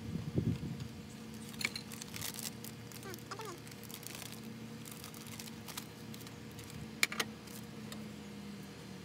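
Faint handling sounds of food preparation: a plate being set down and moved, a plastic zip bag rustling, and a sharp click about seven seconds in, over a low steady hum.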